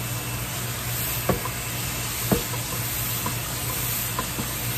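Frozen ground beef and onions sizzling in garlic butter in a frying pan, over the steady hum of a stove vent fan on low. Two sharp knocks sound about a second apart in the middle.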